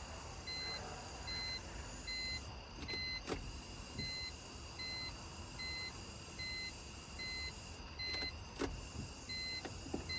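A car's electronic warning beep repeating steadily, a little under two beeps a second, with a couple of short knocks about three seconds in and again near the end.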